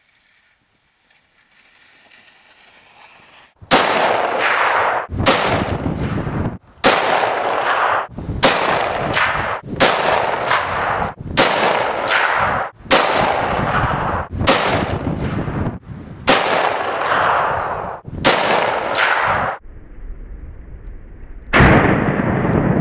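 A run of about ten high-powered rifle shots, one roughly every second and a half, starting about four seconds in. Each crack is followed by a long rumbling echo that cuts off abruptly. Near the end a duller, sustained blast-like sound begins.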